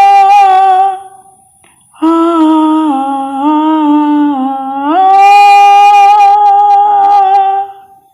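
A man's voice imitating an eerie horror-film sound effect with long, high wailing hums. A held high note stops about a second in. After a pause, a lower note steps down in pitch, then slides back up to the high note and holds it until near the end.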